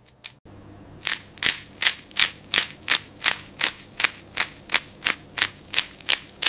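Sharp taps or clicks repeating evenly, about three a second, over a low steady hum. They begin about a second in.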